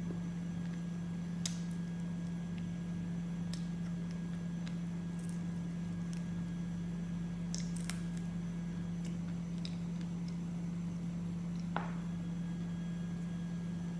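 Close-up eating sounds: a few small, scattered clicks and smacks of chewing and of fingers pulling meat off grilled chicken bones, over a steady low hum.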